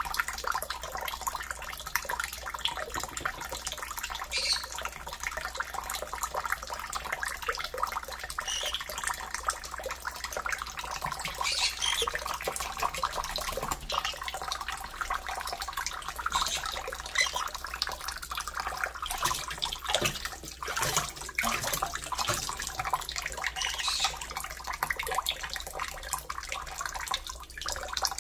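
Kitchen tap water running steadily into a stainless steel bowl and sink, with irregular splashing as a small parrot bathes in the stream.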